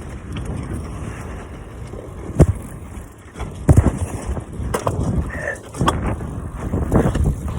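Bicycle being ridden: a steady low rumble, broken by several sharp knocks and rattles as the bike jolts over bumps.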